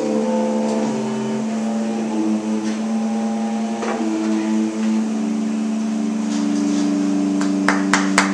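Electric bass guitar played with a bow through an amplifier: long drawn, droning notes that step to a new pitch every second or so, then settle on a steady held low note. A few sharp clicks come near the end.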